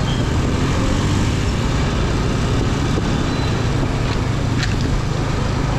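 Hero Glamour motorcycle running steadily at low speed in street traffic, heard from the rider's own bike as a constant engine and road rumble.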